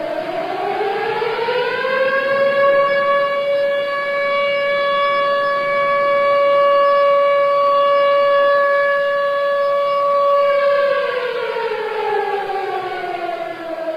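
Civil defense siren sounding a commemorative alert: the tone rises over about two seconds, holds a steady pitch for about nine seconds, then falls away, and begins to rise again at the very end.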